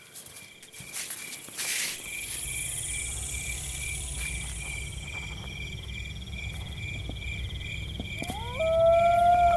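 Night crickets chirping in a steady pulse, about three chirps a second, over a constant high insect buzz. From about two seconds in, a low drone runs underneath. Near the end a tone rises and then holds, louder than the rest.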